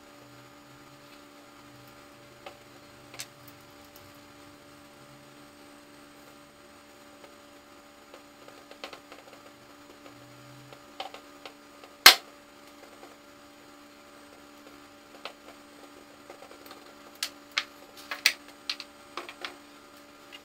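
Steady electrical hum, broken by the sharp clicks and knocks of steel bar clamps being loosened and set down on a plywood table bed. One loud knock comes about twelve seconds in, and a quick run of knocks comes near the end.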